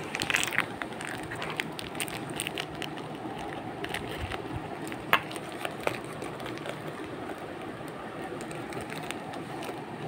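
Plastic biscuit wrapper crinkling and crackling as a parrot tears at it with its beak: a run of small sharp clicks and rustles, with one louder snap about five seconds in.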